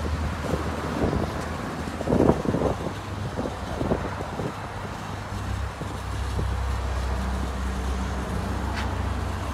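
A steady low mechanical hum, like an engine or machine running, with a few irregular knocks and rustles clustered about two to four seconds in.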